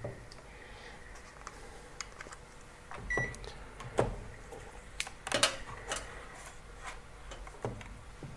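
Digital multimeter and test probes being handled: scattered light clicks and knocks, with one short high beep from the meter about three seconds in.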